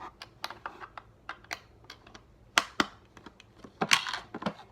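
Irregular light clicks and taps of a tiny screwdriver and small parts being handled at the battery compartment of a speed cube timer, with a few louder clicks past the middle and near the end.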